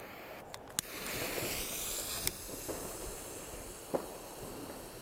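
Fuse of a small F2 shell tube (Albert Glamour Shots) hissing as it burns, then a sharp pop about two seconds in as the tube fires its shell, which rises on a spark tail; a second, duller pop comes about four seconds in.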